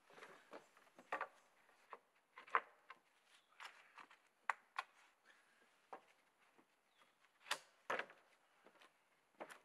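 Thin dry wooden floor poles knocking and clattering against one another as they are shifted into place by hand, with footsteps on the loose poles. The knocks come irregularly.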